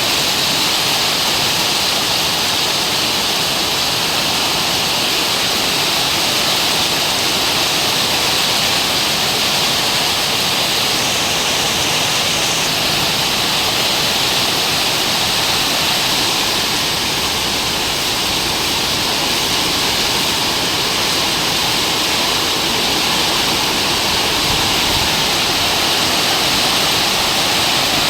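Heavy rain pouring down, a loud, steady hiss of a downpour with no let-up.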